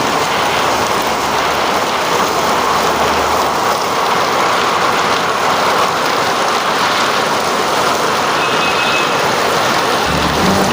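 Heavy rain falling steadily, an even rushing hiss without breaks.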